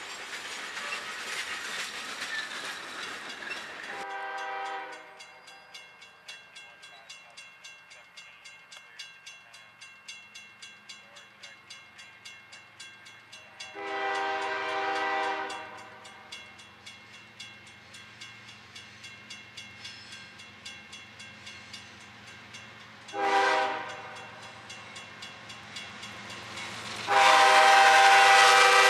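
Freight train rolling through a grade crossing for the first few seconds, then a crossing bell ringing about twice a second while an approaching CSX freight locomotive sounds its multi-chime horn in the grade-crossing pattern: long, long, short, long. The last blast is the loudest, as the locomotive reaches the crossing.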